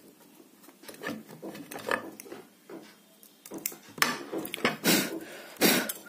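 Hands working at a ceiling fan's stator, picking and tugging at the burnt connection wires among its copper coils: scattered rubbing scrapes and clicks that grow louder and more frequent about halfway through, with a few sharper knocks near the end.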